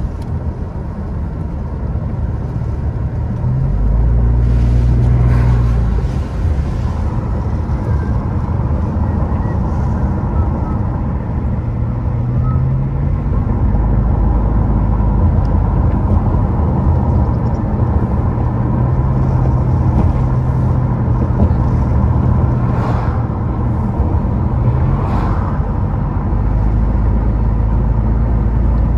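Car cabin sound while driving: a steady low rumble of engine and tyres on the road, with the engine note shifting up and down a few times as the speed changes.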